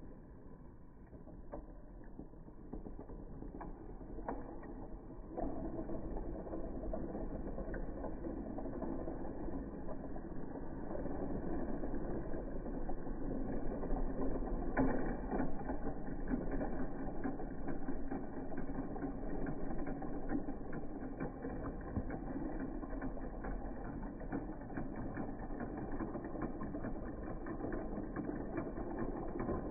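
Motorized Thomas & Friends toy train engines running on plastic track, their small battery motors and gears whirring and rattling steadily. The sound grows louder about five seconds in as the engine comes closer, and is loudest around the middle.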